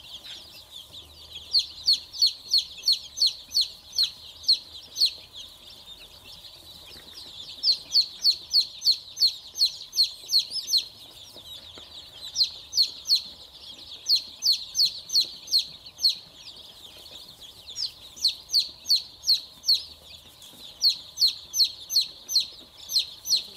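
A brood of chicks peeping: high, falling peeps in quick runs of about three or four a second with short pauses between runs, over a steady chorus of many more chicks further off.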